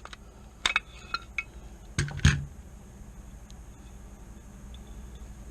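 Metal clicks and clinks of Hi-Point C9 pistol parts being handled and fitted together: a quick cluster of clicks under a second in, then two louder knocks about two seconds in.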